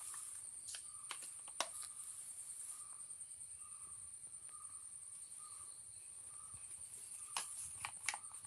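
Steady high-pitched chirring of crickets or similar insects, with scattered sharp rustles and clicks from kittens tugging at a plastic cat food packet: a few about a second in, and a cluster near the end.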